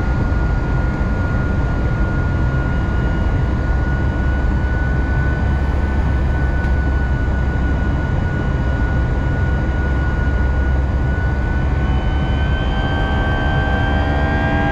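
Cabin noise of an Airbus A320: the jet engines' steady low rumble with a thin, steady whine over it. About twelve seconds in, several tones start climbing together as the engine pitch rises.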